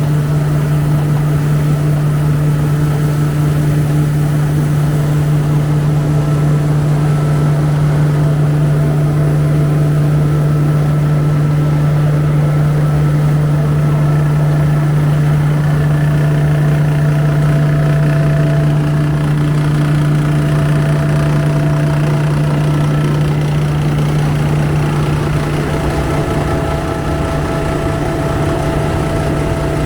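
Kaneko KMP-400JX rice husker running steadily with a constant hum, its bearings newly replaced to cure an abnormal noise.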